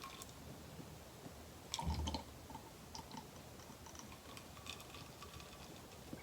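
Faint scattered clicks and rustles of hands working knitted fabric with a crochet hook, with a soft bump about two seconds in.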